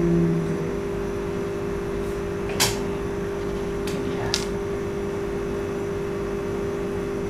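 Steady room hum from a running appliance, holding one constant tone, with two light clicks about two and a half and four seconds in.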